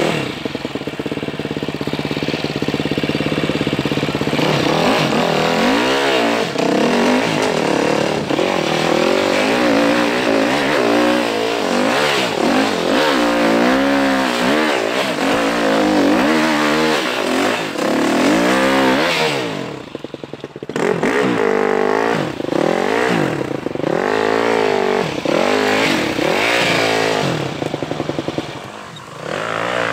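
Enduro dirt bike's engine, heard from the rider's helmet, revving up and down hard under load as it is ridden, with the throttle shut off briefly about two-thirds of the way through and again near the end.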